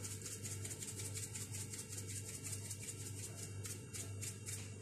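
Faint room tone: a steady low hum with hiss.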